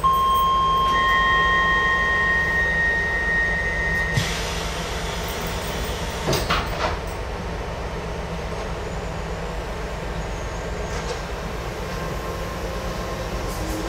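Docklands Light Railway train standing at a platform: steady electronic door-warning tones sound for about four seconds and end with a click as the sliding doors close. A couple more clicks follow, then the stationary train's equipment hums steadily.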